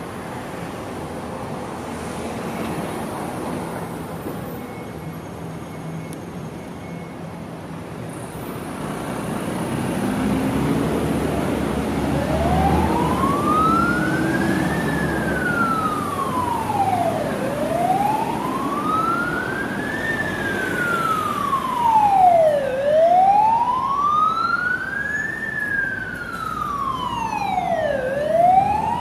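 Vehicle engine and street noise, then about twelve seconds in an emergency siren starts a slow wail, rising and falling about every five seconds and getting louder: a Hong Kong Fire Services Department Mercedes-Benz Sprinter ambulance setting off on a call.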